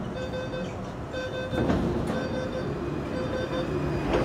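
Metro train door warning chime beeping repeatedly, each beep about half a second long, as the doors open at a station, with a louder rush of door and platform noise about a second and a half in.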